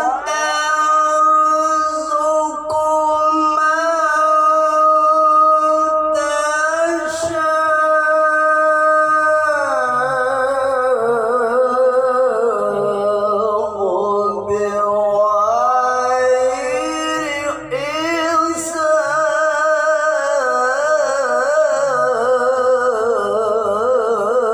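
A male qari recites the Qur'an in the melodic tilawah style, drawing out one long unbroken phrase. The notes are held for about ten seconds, then the pitch drops and winds through quavering ornaments before climbing back up near the end.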